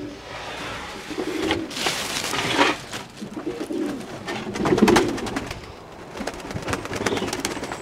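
Pigeons cooing, several low coos, with a burst of rustling noise about two seconds in.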